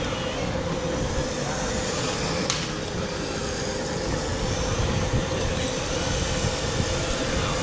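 Radio-controlled scale model Schlüter tractor running steadily while it pulls a cultivator through loose soil: a steady hum over a low rumble and noise.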